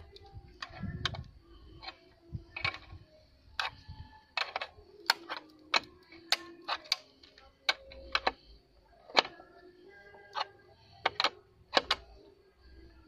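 Sharp metal clicks and clinks at an irregular pace, about one or two a second, from a wrench on the bolts and the metal license plate against its bracket as the plate is tightened on.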